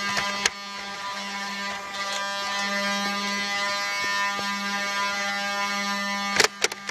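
Motorised flywheel Nerf blaster revving: a steady electric buzz. There is a sharp click about half a second in and a quick run of loud clicks near the end.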